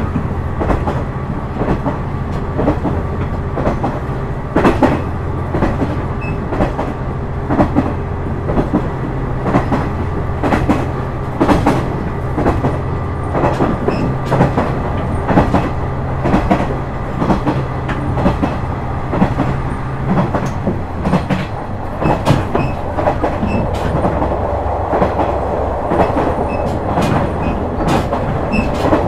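JR West KiHa 126 series diesel railcar heard from on board: its diesel engine drones steadily while the wheels click over rail joints in an uneven rhythm. About two-thirds through, the engine note drops, and a rushing noise grows toward the end.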